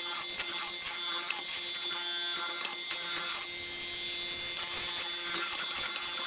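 Benchtop hollow-chisel mortiser running with a steady motor hum, its square chisel and auger bit plunged into a softwood board and chewing out chips.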